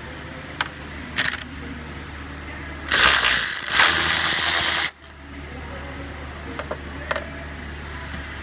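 Cordless Snap-on ratchet motor running for about two seconds, spinning a socket on a radiator bracket bolt, with a brief dip midway. A few light clicks and knocks of the tool and socket come before and after.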